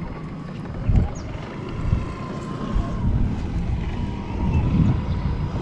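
Wind buffeting the phone's microphone: a low, uneven rumble that swells in gusts.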